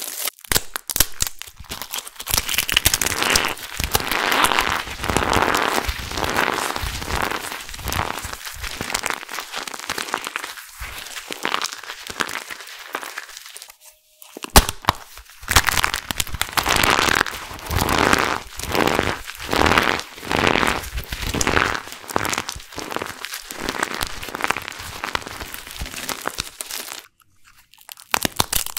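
Hands crushing and crumbling pieces of dry, crisp soap: a dense run of crunching and crackling. A little before halfway it pauses briefly, then a single sharp crack comes, and there is another short pause near the end.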